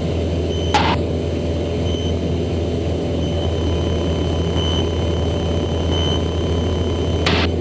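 A light aircraft's engine and propeller drone steadily, heard inside the cockpit. Two short crackles come through, about a second in and again near the end.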